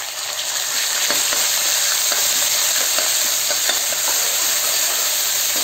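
Garlic, ginger and green chilli paste sizzling in hot mustard oil in a metal kadhai, building over the first second and then holding steady. A steel ladle stirring the paste scrapes and clicks faintly against the pan.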